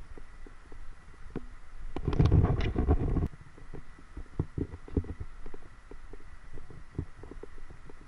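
Irregular low thumps from footsteps and handling of a handheld camera while walking, with a louder rush of noise about two seconds in that lasts about a second.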